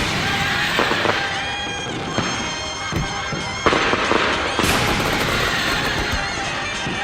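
Fireworks bursting over a music soundtrack: several sharp bangs, with two spells of dense crackling. The loudest and busiest spell begins a little past halfway.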